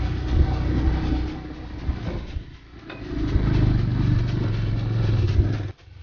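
Motorcycle engine running while riding, with road and wind noise; the sound rises and falls with the throttle, dips about halfway through and drops away suddenly near the end.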